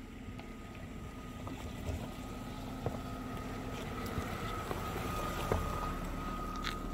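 BMW 525i's straight-six engine running as the car creeps over a rough dirt track, with a steady whine and a few sharp knocks from the rough ground, gradually getting louder.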